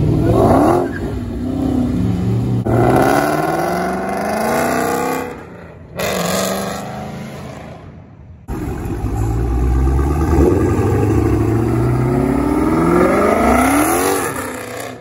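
Dodge Challenger Hellcat Redeye's supercharged V8 revving and accelerating, the engine pitch climbing in long rising sweeps several times. The sound cuts off and jumps abruptly about six and eight and a half seconds in, as clips are joined.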